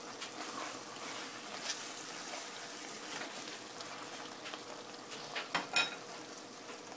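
Chicken masala sizzling and crackling in an uncovered pan over medium-high heat as it is stirred, with the last of the liquid cooking off and the masala drying onto the chicken. A few louder clicks come from the stirring near the end.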